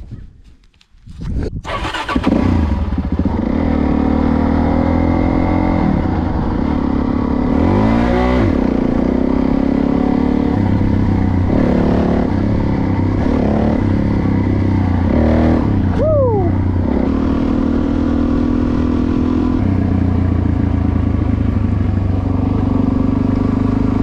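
Suzuki DR-Z400S's single-cylinder four-stroke engine running while the bike is ridden. It comes in suddenly about two seconds in, and its pitch dips and climbs several times with throttle and gear changes.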